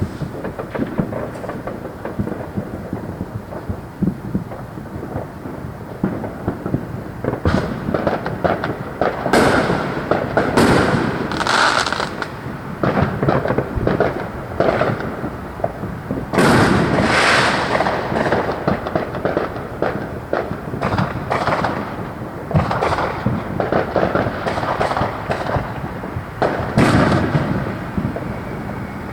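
Fireworks going off continuously: dense crackling and popping, with louder clusters of bangs three times, about a third of the way in, past the middle and near the end.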